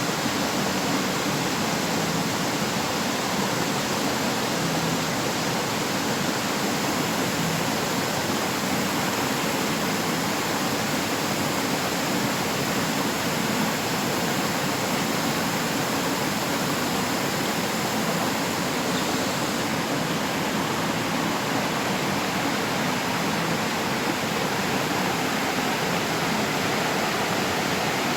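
River water rushing and splashing over rocks, a steady, even roar of flowing water.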